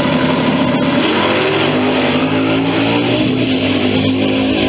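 V8 drag cars, a red Ford Galaxie among them, launching hard off the starting line and accelerating down the strip. The engine note rises about a second in, then holds high.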